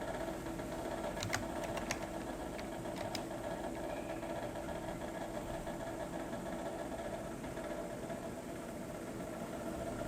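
Steady machine hum, with a few faint clicks in the first few seconds.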